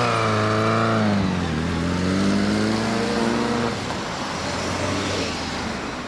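Suzuki Inazuma 400's inline-four through a WR'S aftermarket silencer, pulling away: its engine note holds, dips about a second and a half in, and climbs again. It fades out after about four seconds into street traffic noise.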